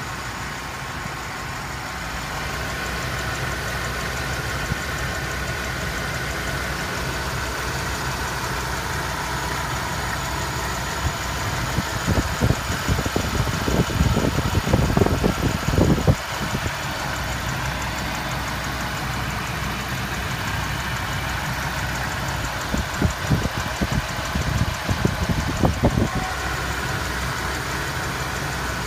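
Ford engine idling under the open hood, with a misfire and a ticking that the owner places under the valve covers. Twice, about a third of the way in and again about three-quarters through, a louder uneven rushing noise rises over the idle for a few seconds.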